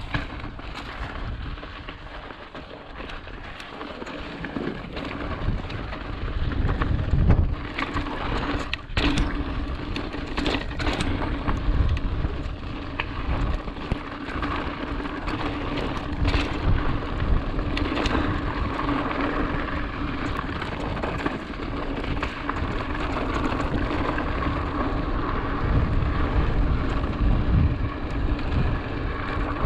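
A mountain bike rolling along a dirt trail, its tyres crunching over dirt and gravel, with scattered knocks and rattles from the bike and gusts of wind rumbling on the action-camera microphone.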